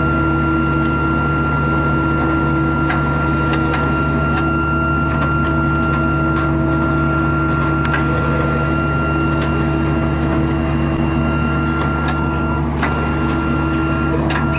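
Purse seiner's engine and deck machinery running with a steady low drone and a constant high whine, with scattered light clicks and knocks.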